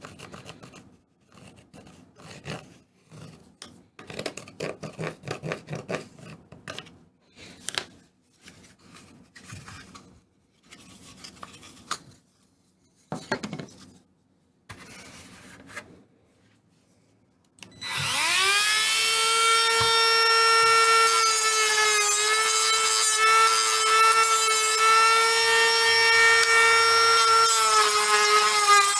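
Irregular scraping, rubbing and light knocks as a plastic tube is handled and worked by hand. About eighteen seconds in, a small high-speed power tool spins up with a rising whine and then runs steadily, its pitch dipping slightly at times, while it shaves down the tube's edge.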